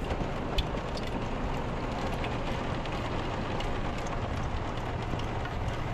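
Rain heard from inside an RV: a steady hiss of rainfall with scattered sharp ticks of drops striking the roof and windows.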